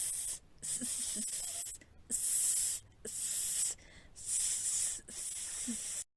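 A person making a long hissing "sss" sound, the /s/ phoneme of a Spanish letter, about six times in a row, each lasting about a second with brief breaths between.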